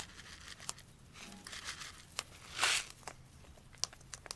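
Cockatoos feeding close by: scattered small clicks and crunches of beaks on food, with one short harsh rasp a little past halfway.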